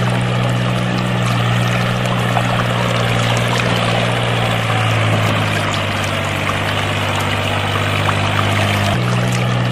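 Water pouring and splashing steadily from the outlets of a small DIY water pump rig, over a steady low hum that shifts about halfway through and changes abruptly near the end.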